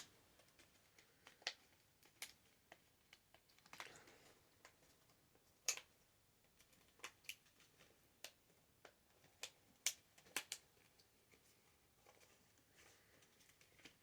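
Faint, irregular small clicks and taps, a dozen or so spaced unevenly, from handling the parts of a Samsung Galaxy Tab 3 tablet as it is put back together.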